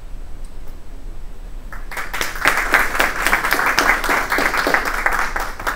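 A small group of people clapping, starting about two seconds in and stopping near the end.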